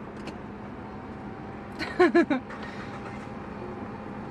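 Steady hum of an idling car heard inside the cabin, with a brief wordless voice sound about two seconds in.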